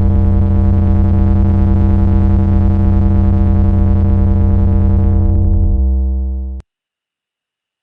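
Hard-bass DJ remix music: a single deep synthesizer bass note held with heavy low end, its brighter overtones thinning toward the end before it cuts off suddenly about six and a half seconds in.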